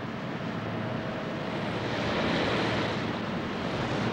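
Steady rushing noise of wind and sea that swells about halfway through, over a low steady hum.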